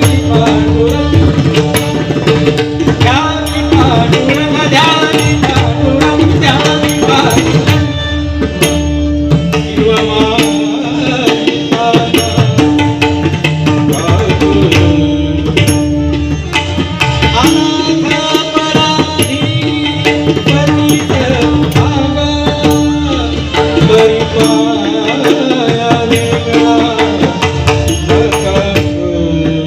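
Warkari bhajan music, loud and continuous: tabla strokes throughout under a sustained melodic line.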